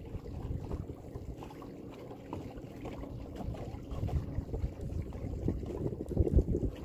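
Boat under way on the water, with uneven wind buffeting on the microphone and a faint steady motor hum beneath it; a stronger gust near the end.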